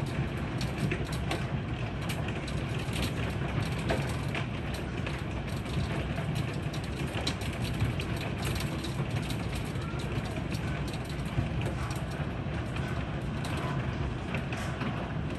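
Heavy rain and hail falling on a wooden deck: a steady rush of rain with many sharp clicks of hailstones striking the boards and railing.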